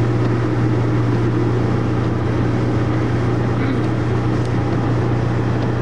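Inside the cabin of a rear-engined Skoda at steady motorway speed: the engine's even low drone with tyre hiss on the wet road.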